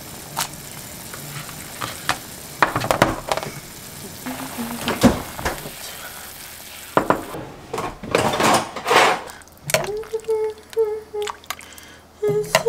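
A pot of beef and radish soup boiling on a gas stove with a steady bubbling hiss, while a spoon stirs and knocks against the pot a few times. The hiss thins out about seven seconds in, and near the end a few held notes of a tune come in.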